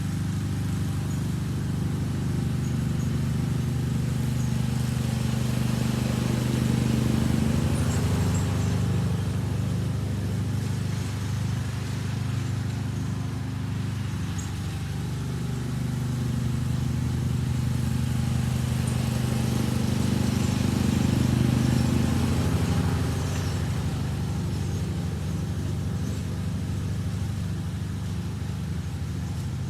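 John Deere riding lawn mower engine running steadily while mowing, swelling slightly louder twice, about a quarter of the way in and again about two-thirds through.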